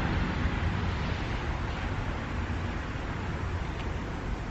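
Steady outdoor background noise: a low, uneven rumble with a fainter hiss above it.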